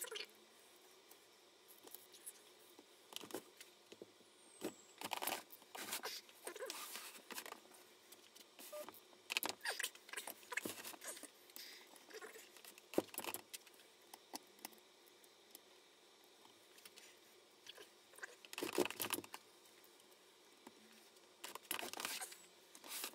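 Socket wrench loosening the head bolts on a Kawasaki ZX-7R cylinder head by hand: scattered clicks, metal clinks and short scrapes of the tool and bolts against the aluminium head, in irregular bursts with pauses between them.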